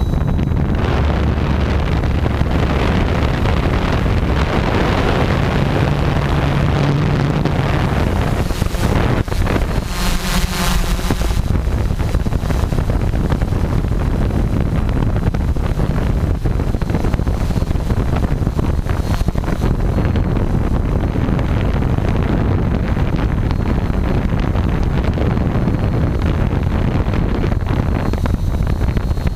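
Tarot 680 drone's motors and propellers running steadily in flight, with heavy wind buffeting on the onboard GoPro's microphone.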